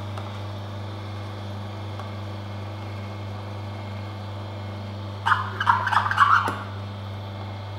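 Oscar DA1000 cold-press slow juicer's motor humming steadily as its auger presses diced apple. A little after five seconds in comes a short run of squeaks and creaks: apple skin being squeezed in the juicing chamber, which is normal for this juicer.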